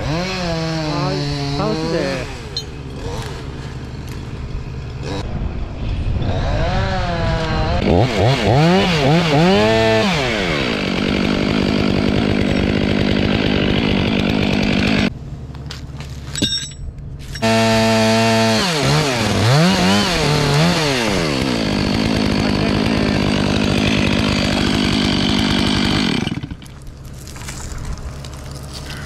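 Stihl MS500i two-stroke chainsaw revved up and down several times, running steadily at high speed in between. It drops back to a lower level about halfway through and again near the end.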